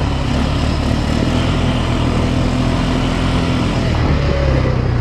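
ATV engine running at a fairly steady pitch.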